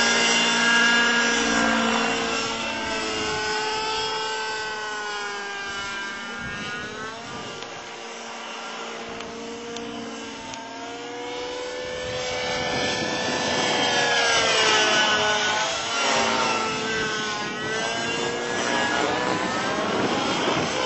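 Robbe Millenium 2 radio-controlled model helicopter in flight: the whine of its engine and rotors rises and falls in pitch again and again as it manoeuvres and passes. It fades somewhat about halfway through, then grows louder again.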